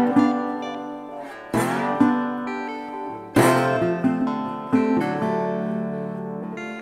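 Background music: acoustic guitar chords strummed every second or two, each left to ring out.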